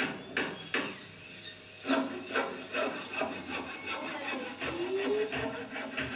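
Sound effects for a facial operation: irregular clicks and scraping strokes, with high, wavering squeaks about four seconds in.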